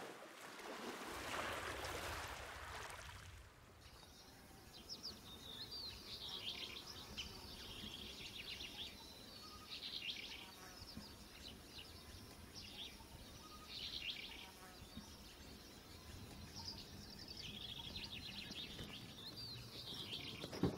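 Birds chirping in short repeated bursts of high calls over faint outdoor background noise. A broad rushing noise fades out about three to four seconds in.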